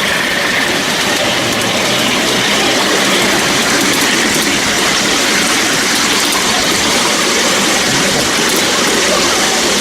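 Ride-on miniature railway train running along the track, heard from on board: a steady rushing and rumbling running noise that holds level throughout.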